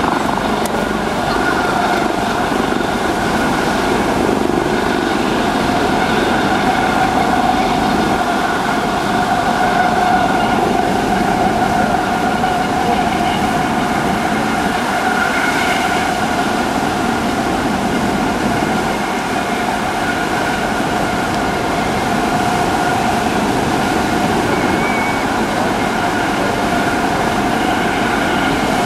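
US Coast Guard HH-65C Dolphin twin-turbine helicopter hovering low, a steady rotor and turbine noise with a high two-tone whine that swells and eases a little.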